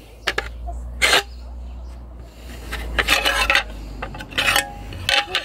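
Knife point scraping across a natural roofing slate, scoring the line where it will be cut to size, in several short strokes; the loudest comes about a second in and a longer run around three seconds in.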